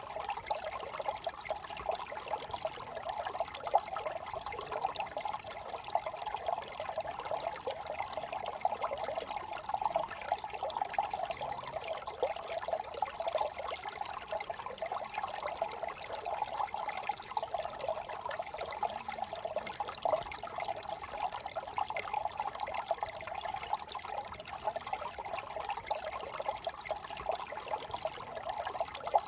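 A small brook trickling and gurgling steadily, with a constant flickering babble and no breaks.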